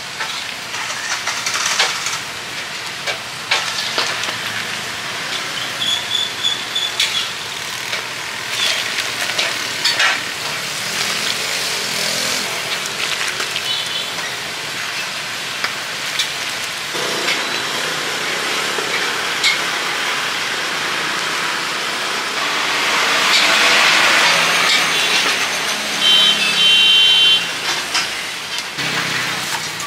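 Street-food stall clatter: a ladle and aluminium pots knocking and scraping, over a steady hum of passing traffic. A louder rushing swell comes about three quarters of the way through, and short high beeps sound twice.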